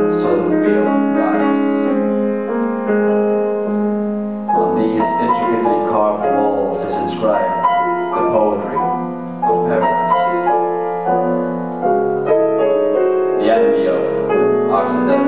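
Grand piano playing a contemporary concert piece: overlapping chords and runs with the notes left ringing, and a louder flurry of new notes entering about four and a half seconds in.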